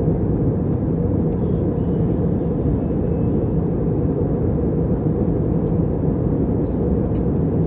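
Steady low drone of an Airbus A320's engines and air noise heard inside the passenger cabin, even and unchanging.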